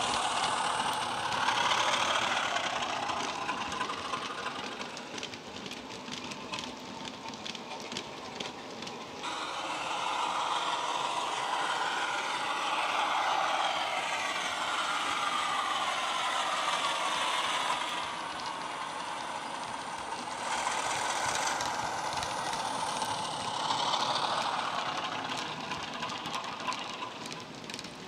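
Class 33 diesel engine sound, the Sulzer eight-cylinder, played by a model locomotive's DCC sound decoder through a small bass-enhanced speaker as the model runs under power. The engine note rises and falls, and the model's wheels click and rattle on the track.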